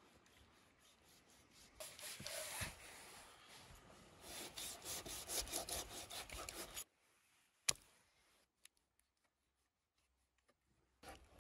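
A knife cutting raw beef on a wooden cutting board: a run of quick scraping strokes through the meat. A single sharp knock follows about three-quarters of a second later, then quiet.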